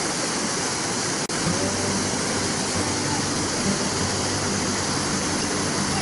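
Steady rush of churning whitewater rapids, with a brief dropout about a second in and faint voices now and then.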